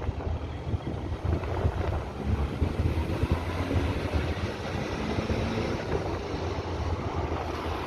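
Sandstorm wind blowing hard and buffeting the phone's microphone, a steady gusty noise with a heavy low rumble.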